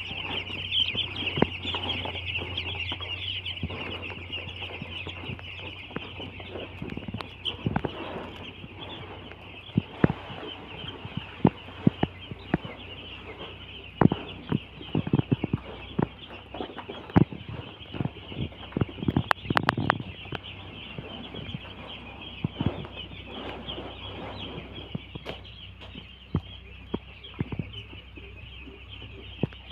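A flock of two-day-old broiler chicks peeping constantly, a dense high-pitched chirping, with scattered sharp taps and knocks throughout.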